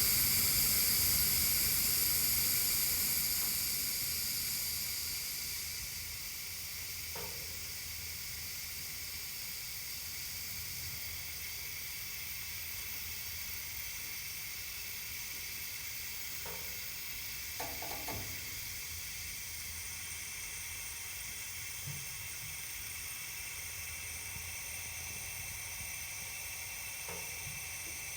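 Gas escaping under pressure with a steady high hiss. It is louder for the first few seconds, then eases down and holds level, with a few faint knocks along the way.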